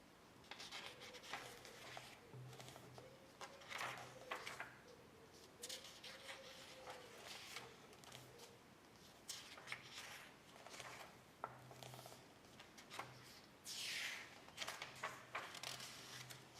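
Faint, intermittent scraping and rubbing noises with a few sharp clicks.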